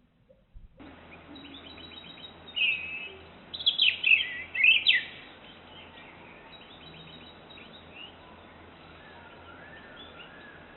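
Small birds chirping and calling over a steady hiss, with a burst of loud, quick chirps between about two and a half and five seconds in, then fainter chirps and a short warble.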